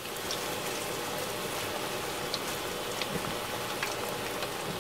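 Breaded pork cutlet (tonkatsu) deep-frying in hot oil at 180 °C: a steady sizzle of bubbling oil with a few small crackles scattered through it.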